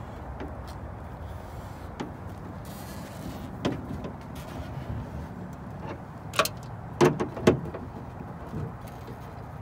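Hand screwdriver driving the spoiler's mounting screws from under a Dodge Charger's trunk lid: scattered sharp clicks and knocks of tool and hardware against the sheet-metal lid, the loudest two about half a second apart past the middle, over a steady low background noise.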